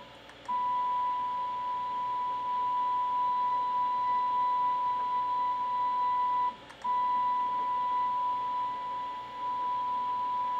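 Geared Wade's extruder stepper motor whining at one steady high pitch as it feeds filament through the hot end. The whine drops out twice: briefly at the start and for a moment about six and a half seconds in.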